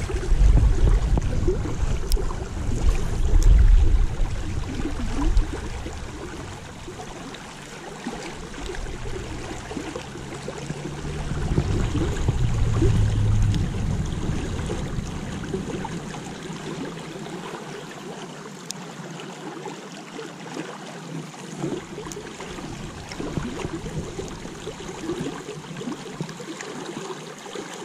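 Creek water running over a riffle: a steady rushing of flowing water, with low rumbles during the first five seconds and again around twelve seconds in.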